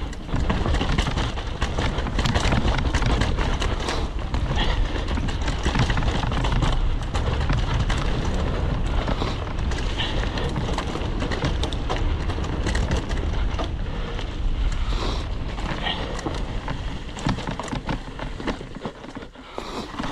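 Mountain bike descending a leaf-covered dirt trail: tyres rolling over dirt and dry leaves, with the bike clattering and rattling over bumps and wind rumbling on the microphone. It quiets briefly near the end.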